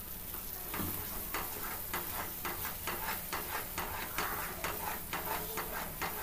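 Wooden spatula stirring thick ash gourd halwa in a nonstick pan, quick scraping strokes about three a second over a soft sizzle of freshly added ghee. The halwa is cooked down far enough to come away from the pan.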